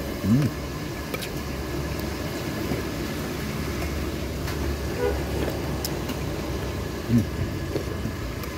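Steady rumble of road traffic, with a few light clinks of a metal spoon against a ceramic soup bowl.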